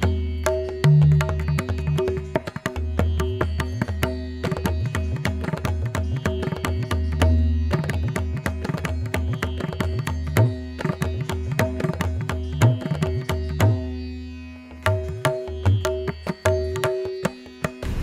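Instrumental music: quick, rhythmic drum strokes over steady held notes and a pulsing bass, Indian-classical in style.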